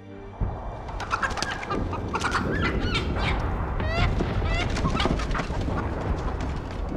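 Chickens clucking in a steady market bustle, which starts suddenly about half a second in as the music cuts off.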